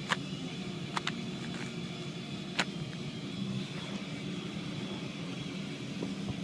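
2x2 Rubik's cube being scrambled by hand, its plastic layers clicking sharply as they are twisted: once just after the start, twice in quick succession about a second in, and once more a little later. Under the clicks runs a steady low hum.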